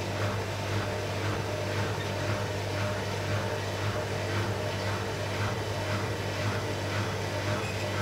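Arçelik 5900E washing machine running its drum steadily at low speed with a single wet bath towel inside, trying to balance the load before the spin. It gives a constant motor hum with a soft swish repeating about twice a second.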